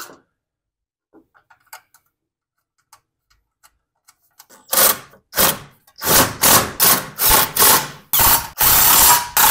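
DeWalt cordless impact driver running bolts into a small engine. It goes in short bursts: two single ones about halfway in, then a quick series of about seven, then a longer run near the end. Before that there are only a few faint clicks of bolts being set by hand.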